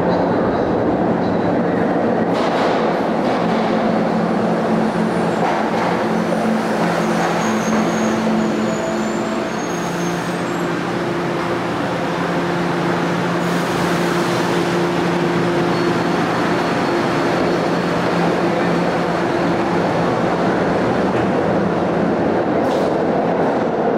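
SEPTA Kawasaki LRV subway-surface trolley (K-car) running through an underground station: a steady loud rumble of the car on the rails with a low steady hum under it. A few faint high squeals come about a third of the way in.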